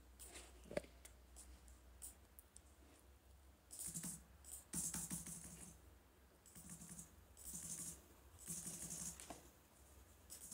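A computer keyboard being tapped quickly in short bursts, each about half a second of rapid clicks, as spaces are typed into a line of text. There is a single sharper click about a second in.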